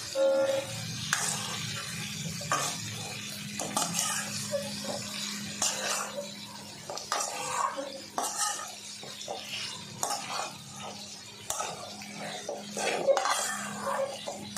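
A metal spoon scraping and clinking against a metal cooking pot in irregular strokes as fried chicken pieces are stirred through thick masala, over a steady low hum.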